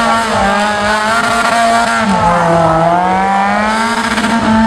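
Off-road 4x4 competition vehicle's engine running hard under load, its pitch dropping about two seconds in and then climbing steadily again.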